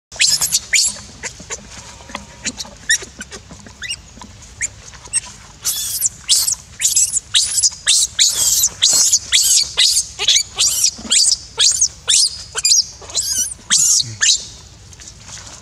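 Infant macaque screaming in short, high-pitched squeals: a few at first, then a rapid run of about two a second from about six seconds in until near the end. These are distress screams of a baby being kept from nursing.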